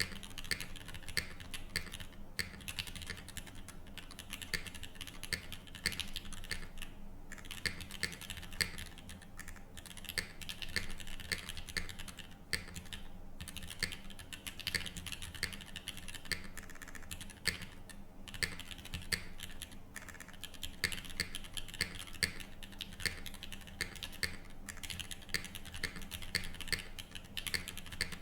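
Continuous fast typing on a Tofu60 3.0 mechanical keyboard with Gateron L'Orange switches, an aluminium plate, no foam and KKB Cinque Terre keycaps. The keystrokes come in a dense, irregular stream of clicks with a few brief pauses.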